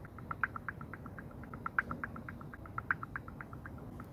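Soft, quick electronic ticking from a smartphone app's waiting sound while it processes a request, about six ticks a second, with a slightly louder tick roughly once a second.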